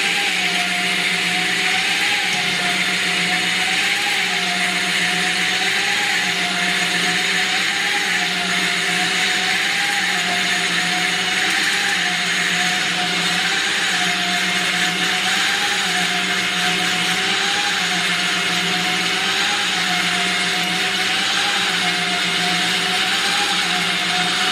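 A CNC plate drilling machine running steadily, with a machine whine whose pitch wavers up and down about every one and a half seconds over a steady hum.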